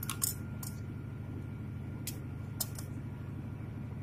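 A few light clicks and taps, three close together at the start and two more about two seconds in, over a steady low hum.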